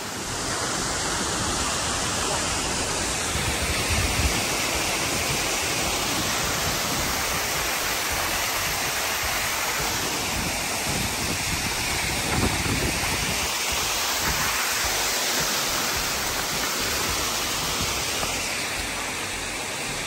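Waterfall pouring down a rock face close by: a steady, dense rush of falling water.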